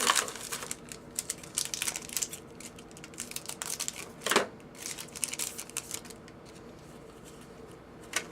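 Trading cards and foil pack wrappers being handled: crinkling, rustling and small clicks of cardboard, with louder rustles at the start and about four seconds in, quieter near the end.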